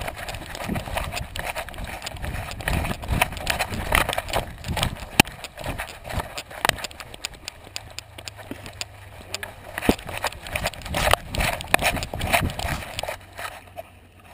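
Knocks and rubbing from a GoPro Hero2 strapped to the back of a boxer dog, jolted by the dog's movements as he moves about and sniffs: irregular thumps from the mount with fur and harness brushing against it.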